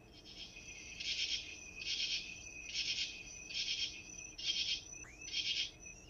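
Katydid calling: a recording of its rasping 'katy-did' song, repeated pulses about once a second, over a faint steady high insect trill.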